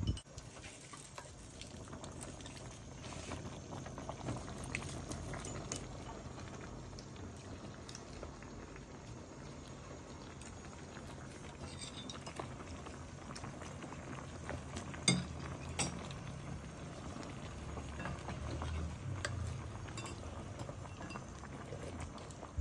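Duck hotpot broth boiling steadily in its pot, a soft continuous bubbling. Two sharp clinks of utensils come a little past the middle.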